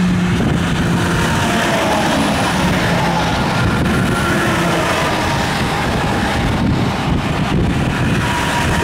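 Semi trucks passing close by at highway speed, the steady rush of their tyres and engines over the background traffic. Faint tones slide down in pitch as each truck goes by.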